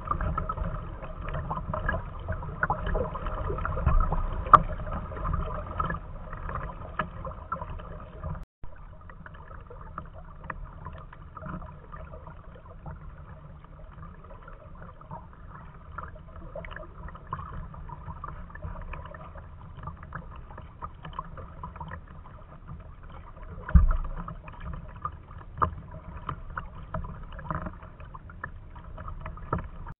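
Kayak on the water: paddle strokes splashing and small waves lapping against the hull, with many small splashes and ticks. It drops out briefly about eight seconds in and runs on quieter, with one louder thump about three-quarters of the way through.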